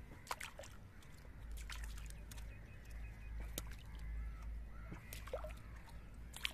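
Fish and a mesh net being handled at the side of a wooden canoe: scattered sharp knocks and small water sounds, over a low steady rumble.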